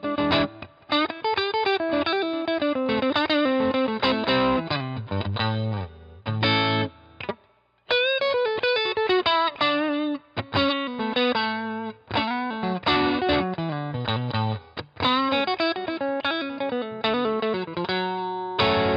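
Fesley ST Stratocaster-style electric guitar played through overdrive: quick picked single-note lines with notes bending in pitch, a brief pause about eight seconds in, and a chord struck near the end and left ringing.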